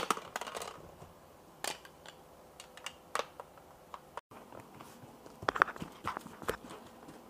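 Light plastic clicks and knocks of toy shapes being dropped into and handled around a plastic shape-sorter bucket, a quick cluster at the start and single knocks after. A few more scattered knocks come in the second half.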